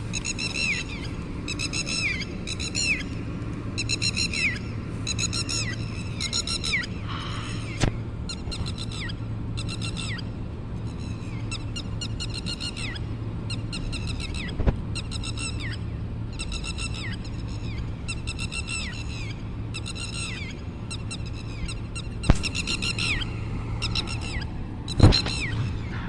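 Red-wattled lapwing giving its alarm call: short, sharp, falling notes repeated about once a second without a break, the call this bird raises when a person or animal comes near. A low steady hum runs beneath, and a few sharp knocks come from the handheld phone.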